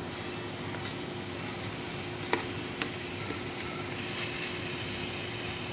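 Wooden spoon stirring chicken and masala in an aluminium rice-cooker pot, with one sharp knock of the spoon against the pot about two seconds in and a lighter knock just after, over a steady background hum.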